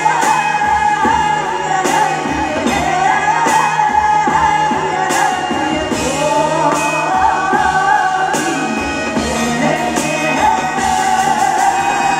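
Music: a singer over a rock band with a steady drum beat.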